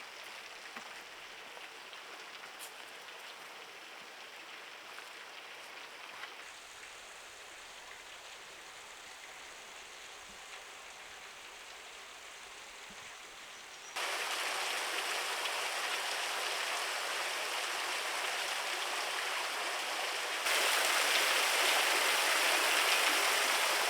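A small canyon waterfall trickling down over rock, a steady rush of splashing water. The sound jumps suddenly louder about 14 seconds in and again about 20 seconds in.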